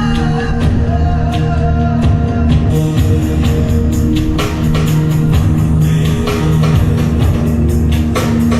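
A song played over Bluetooth through a Harman Kardon AVR-132 receiver and its speakers, with heavy bass and singing. A steady drum beat comes in about two and a half seconds in.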